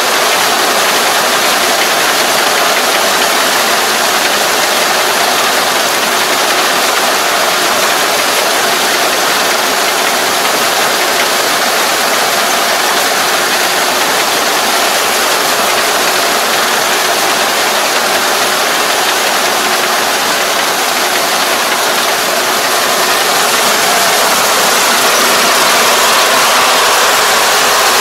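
Kubota ER470 four-row combine harvester running steadily under load while cutting and threshing rice: a continuous engine and machinery drone, getting a little louder near the end.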